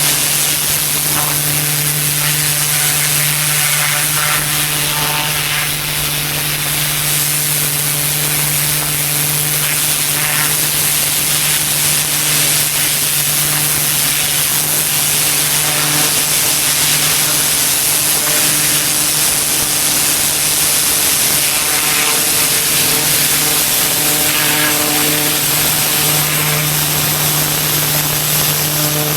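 A pressure washer running steadily: a constant machine hum under the even hiss of the high-pressure water spray on pavers and concrete.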